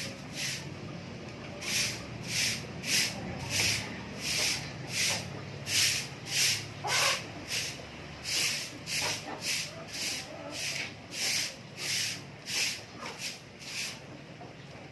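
A steady rhythm of short hissing swishes, somewhat under two a second, that stops about a second before the end.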